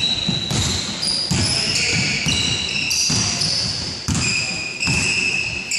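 Basketball shoes squeaking again and again on a hardwood court, over the repeated thuds of a basketball being dribbled, with the echo of a large gym.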